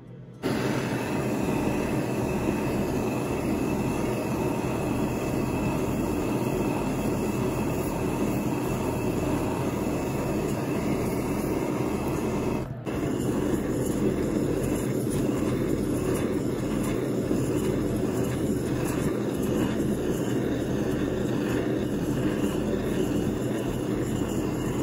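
RONX butane jeweller's torch burning with a steady rushing hiss while it heats a silver bezel wire and copper back plate to flow hard silver solder. It starts about half a second in and breaks off for an instant about halfway through.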